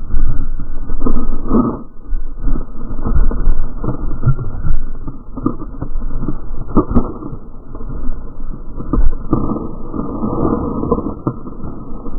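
Speedboat crashing through water and spray: heavy rumbling and buffeting of water and wind on the onboard camera's microphone, broken by repeated hard thumps and knocks.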